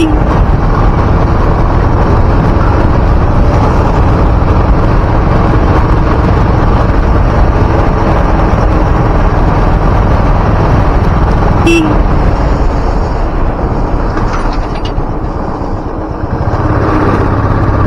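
Motorcycle on the move: steady engine and wind noise on the microphone, with a short horn beep right at the start and another about twelve seconds in. The sound eases off for a couple of seconds near the end, then picks up again.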